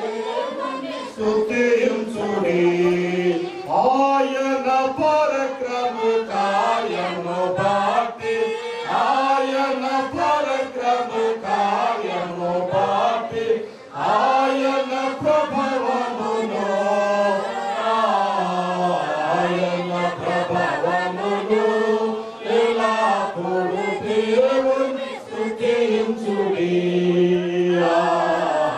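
Slow, chant-like devotional singing, the voices moving in long phrases and holding notes for a second or so between them.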